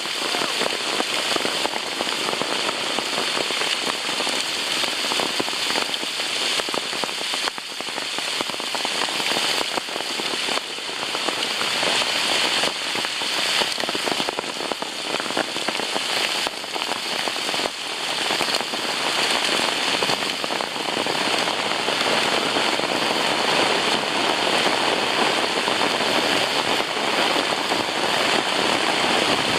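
Hail storm with heavy rain: a dense, steady hiss of countless impacts with sharper cracks of individual hailstones, growing a little louder in the second half. The hailstones are about quarter size.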